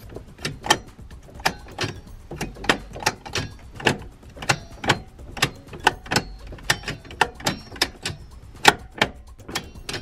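Manual gearbox shift linkage of a Mini John Cooper Works F56 clicking and clunking as gears are selected one after another, testing the newly fitted short shifter arm and shift cable. Sharp clicks and knocks come two or three a second, unevenly spaced.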